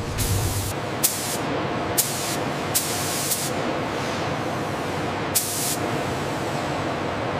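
Air-fed paint spray gun hissing in about five short bursts over a steady background hiss.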